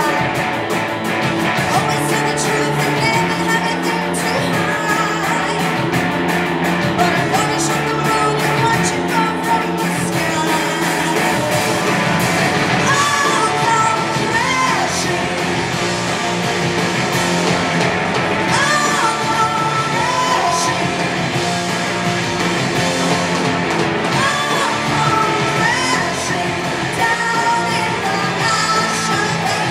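Punk rock band playing live: a singer over electric guitars and drums, loud and steady.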